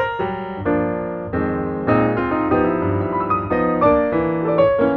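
Piano music: held chords through the middle, with quicker single notes near the start and near the end.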